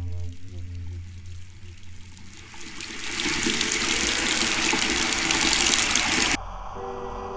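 Bathroom sink faucet running, water rushing and splashing into the basin. It builds up about two and a half seconds in and cuts off abruptly near the end.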